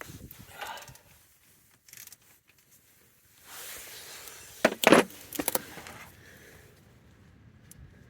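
A spanner clinking and scraping on the drain plug of a backhoe's hydraulic oil tank as it is worked loose, with one loud metallic clank about five seconds in.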